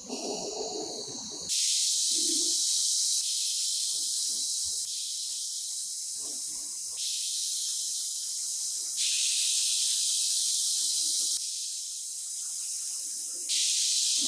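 A handheld gas torch runs with a brief rushing flame, then a compressed-air spray gun hisses steadily as it sprays paint onto a steel motorcycle frame. The hiss starts abruptly about a second and a half in and jumps in level every couple of seconds.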